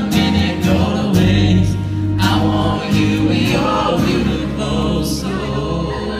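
Live pop song played by a band with singing: sustained bass notes, regular drum hits and guitar under the vocals.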